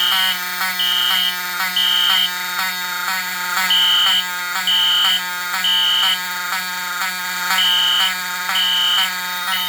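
Two Wheelock fire alarm horns sounding together: an NS-24MCW horn strobe on code 3 (temporal pattern) at low volume, with its slightly scratchy, lower-pitched horn, blaring three short blasts then a pause, over a Wheelock 7002-24 horn sounding continuously. The three-blast cycle repeats about every three seconds.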